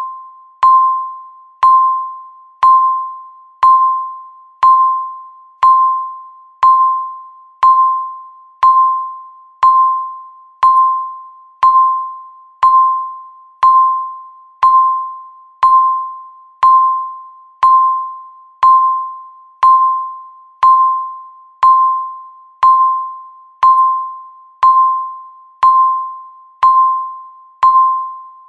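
Countdown timer beeping once a second: a short, sharp-edged electronic tone that rings out and fades before the next, repeating evenly, each beep marking one second left.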